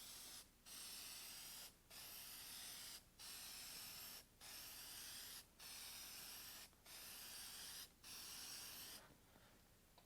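Aerosol can of headlight-lens clear coat spraying with a faint hiss, in bursts of about a second each with brief breaks between them, stopping about nine seconds in.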